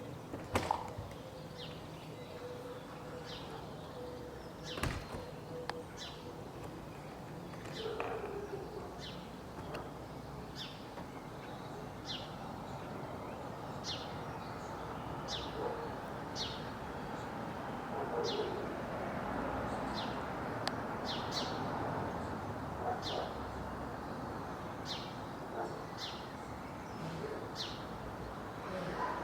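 A bird chirping over and over, short high downward-sliding chirps about once a second, over steady background noise. A few sharp clicks or knocks come near the start and about five seconds in.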